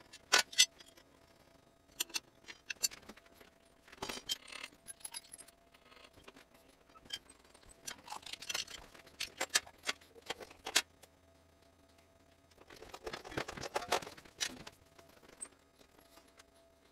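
Scattered clicks, clinks and light metallic knocks of tools and steel parts being handled on a torch duplicator, with a faint steady hum underneath and a busier run of rattling late on.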